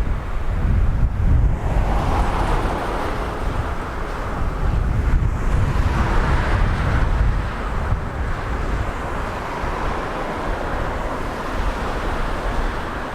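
Gusty wind buffeting the microphone: a steady rushing noise with low, uneven rumbling gusts that swell and ease.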